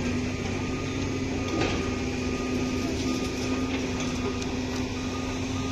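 Heavy diesel machinery running steadily at a demolition site, a constant engine hum, with a faint high beeping tone that comes and goes, like a reversing alarm.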